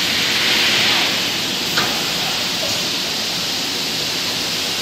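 Holztek HT-280HC CNC panel saw running: a steady hiss that grows brighter about half a second in and eases off a second later, with one short sharp click just under two seconds in.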